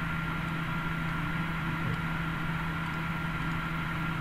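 Steady background hum and hiss with a thin, constant high whine, unchanging throughout; no distinct sound events.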